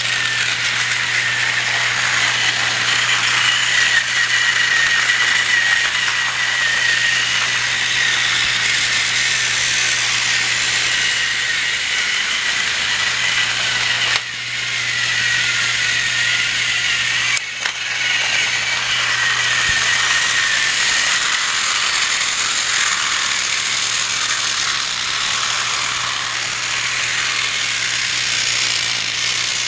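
Battery-operated TrackMaster toy trains running on plastic track: a steady rattling whir of their small electric motors and gears, dropping out briefly twice midway.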